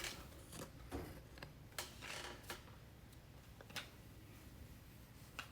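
Faint, scattered small clicks and light rustles from a trading card being handled and positioned, about half a dozen taps spread over a few seconds.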